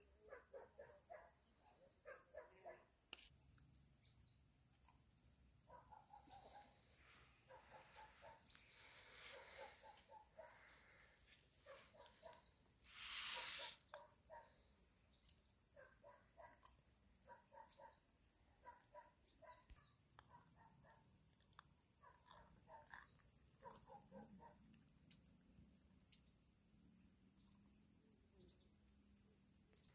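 Faint insect chorus: crickets trilling steadily at a high pitch, with scattered short chirps lower down and a brief rush of noise about halfway through.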